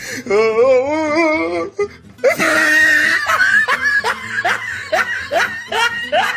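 Meme sound effect clips: a warbling, wavering pitched tone for about a second and a half, then, after a brief gap, a long stretch of laughter over music.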